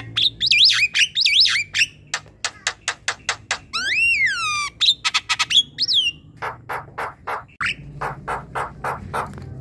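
Javan myna singing a varied song. It opens with quick warbled notes, then a fast run of sharp clicking notes, a loud whistle that rises and falls about four seconds in, and then a series of harsh chattering notes at about three to four a second.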